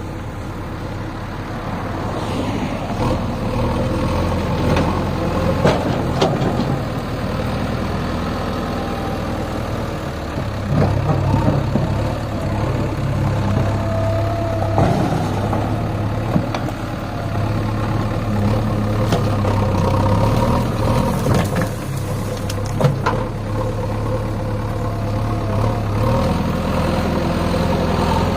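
Diesel engine of a JCB 3DX backhoe loader running steadily, swelling now and then under load, with a few sharp knocks or clanks.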